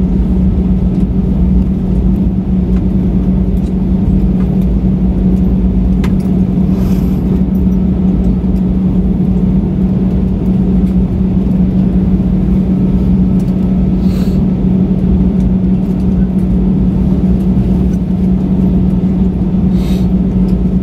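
Airbus A320 cabin noise while rolling out on the runway after landing: a steady, loud engine and rolling drone with a constant low hum, and a few faint ticks.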